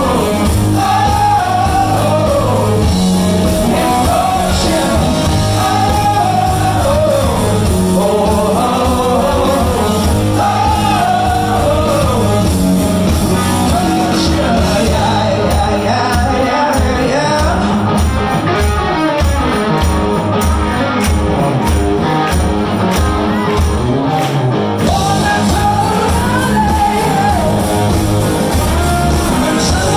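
Live rock band playing: a male lead singer over electric guitar, bass, keyboard and drums, heard from the crowd in a club. For about ten seconds in the middle the bright top end drops away, leaving a regular pounding low beat, before the full sound returns.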